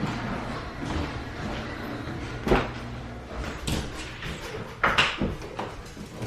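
A door being opened and handled, with a few sharp clunks and knocks, over a low steady hum.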